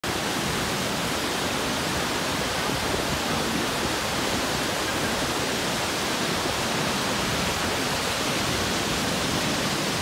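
Kegon Falls and the rocky stream below it: a steady rush of falling and tumbling water.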